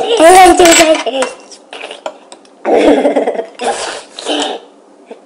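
Boys' voices, with spoons clinking and scraping in ceramic bowls. The voices stop about a second in and return in two short bursts a little past the middle.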